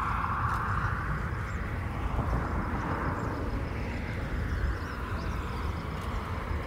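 Jet engine noise of an Airbus A320neo rolling on the runway: a steady rushing noise over a heavy low rumble, slowly shifting and easing slightly towards the end.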